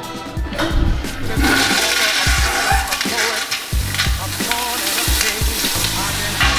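Toilet flushed with a wall-mounted push button: a harsh, loud rush and hiss of water that swells in about a second and a half in, in an ageing bathroom where flushing sounds, in the narrator's words, as if the apocalypse were breaking in. Background music with a steady beat runs underneath.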